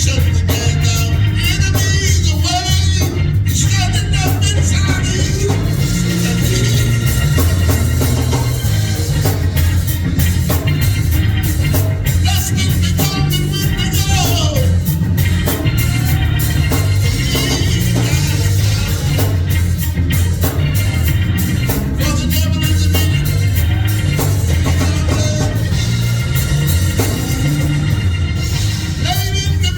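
Church band with drums, bass and guitar playing a gospel praise song while singers sing.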